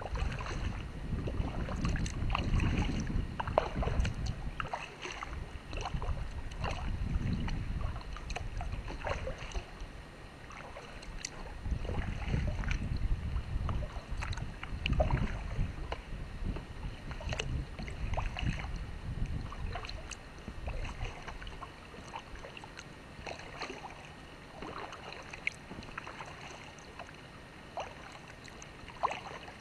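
Kayak paddling: water splashing and dripping from the paddle in many small, irregular splashes, over a low rumble that swells and fades and eases off after about twenty seconds.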